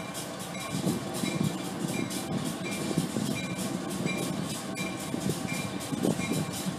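New England Central diesel freight locomotive approaching slowly, its engine rumbling low and growing a little louder after the first second. Throughout, a bell dings steadily, about three strikes every two seconds.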